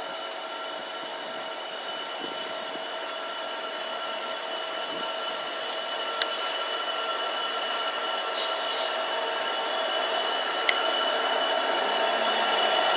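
Freightliner Class 66 diesel-electric locomotive approaching, its sound growing steadily louder, with a steady high whine over the running noise. Two brief clicks, about six and eleven seconds in.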